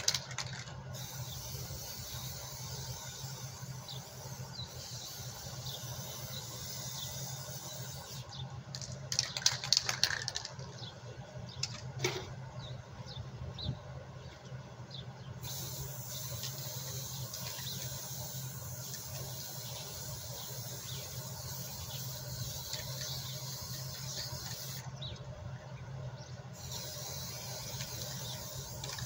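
Small hermetic refrigeration compressor running with a steady low hum under a steady hiss. A brief louder burst of noise comes about nine seconds in, and a single click about twelve seconds in.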